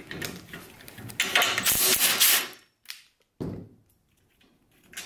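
Metal parts of a garage door opener's trolley and rail being handled: a scraping, sliding rub lasting about a second and a half, then a single knock.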